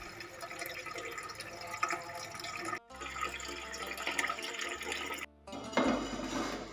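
Running water splashing, cutting off abruptly twice.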